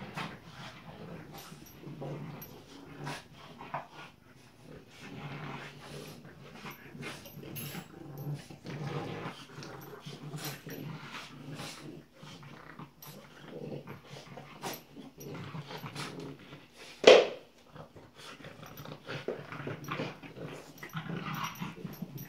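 Two French Bulldog puppies growling in play as they tug and wrestle over a plush toy, in low rumbles that keep starting and stopping. About three-quarters of the way through, one puppy gives a single short cry, much louder than the growling.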